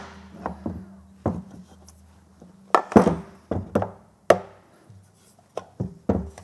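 Hammer blows on the metal end housing of an old pool pump motor: about a dozen irregular knocks, some in quick pairs, each with a short ring. The blows are meant to knock the housing loose so the burnt-out motor can be dismantled.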